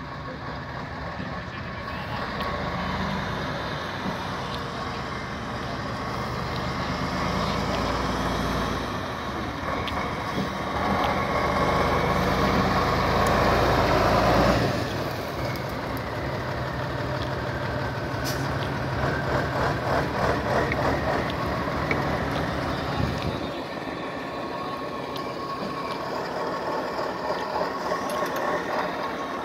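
Heavy diesel engine of a multi-axle off-road trial truck working under load through rough ground. It builds up to a loud peak about halfway, drops off sharply, and runs on more lightly near the end.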